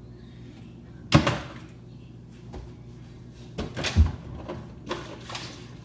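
Plastic water bottle flipped and knocking down onto a microwave: a sharp knock about a second in, then a cluster of knocks with the loudest thud about four seconds in, and a few lighter knocks near the end.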